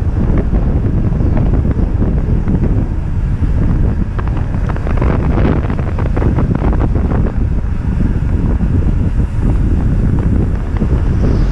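Loud, steady wind noise buffeting a helmet-mounted microphone during a fast mountain-bike descent on a paved road.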